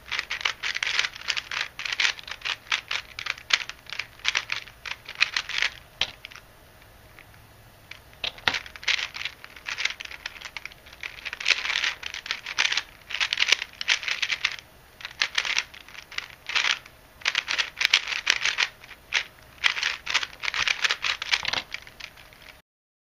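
A modded 3x3 speed cube being turned rapidly during speedsolving: dense, fast plastic clicking and clacking in bursts, with a pause of about two seconds after the first few seconds. It stops abruptly near the end.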